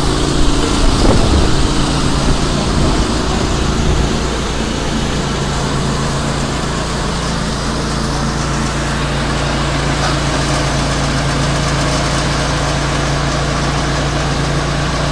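Engine running steadily at constant speed with a low hum, powering the belt trailer and belt conveyor that load gypsum into a hopper rail car. The first few seconds are a little louder and busier before it settles into an even drone.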